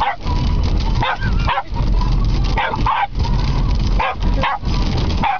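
A dog barking at windshield wipers sweeping in front of it: about eight short, sharp barks, several in quick pairs. Underneath is the steady road and engine rumble of the moving car, heard from inside the cabin.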